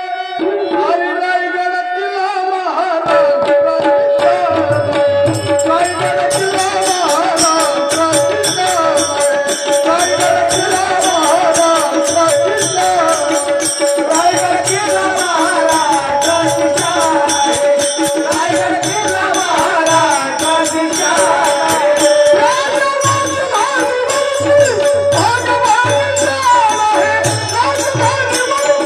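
Indian devotional folk music: a wavering melody over a steady held drone note, joined about three seconds in by a hand drum beating a repeating rhythm, and a few seconds later by jingling small cymbals.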